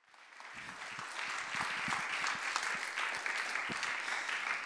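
Audience applauding, a dense patter of many hands clapping that fades in over the first half second.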